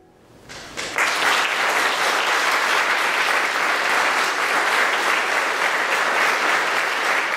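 Audience applauding at the end of a piano performance; the clapping swells up within the first second and then holds steady.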